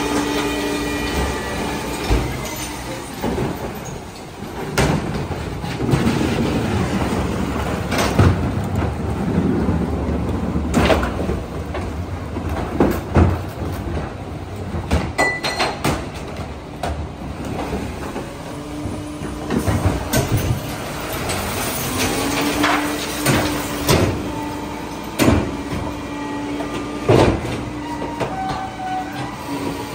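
Heil 5000 rear-loader garbage truck collecting trash, its engine and hydraulics running with a steady hum while the packer grinds and squeals as it compacts. Sharp bangs come about eight times as carts are tipped and bags are thrown into the hopper.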